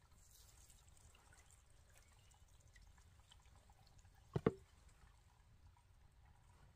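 Faint dripping water with small scattered ticks, and a sharp double knock, two strikes close together, a little past halfway.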